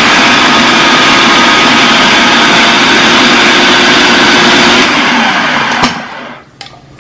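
Food processor motor running steadily at full speed, chopping onion, bell pepper and celery, then switched off about five seconds in and winding down.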